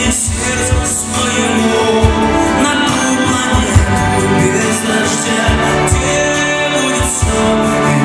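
Live song performance: a male voice singing a ballad over acoustic guitar, with bass and a steady low beat from the backing band.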